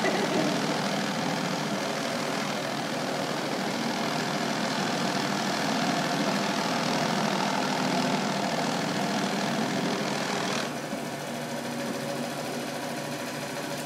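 Rug Badger rug-dusting machine running on a rug, its electric motor and beaters making a steady, loud drone. About ten seconds in the hissy upper part of the sound drops away and it goes quieter as the machine comes off the rug onto the concrete floor.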